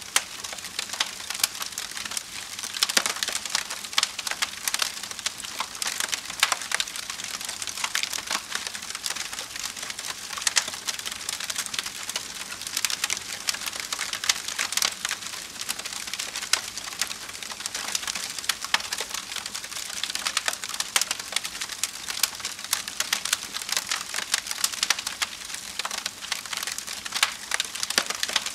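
Wood campfire burning, a steady hiss under dense, irregular crackling and popping.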